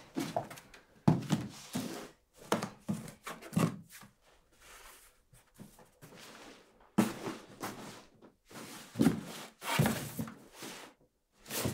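Footsteps and thuds of people moving about indoors and handling things. A run of knocks comes in the first few seconds, then a quieter stretch, then more thuds from about seven seconds in.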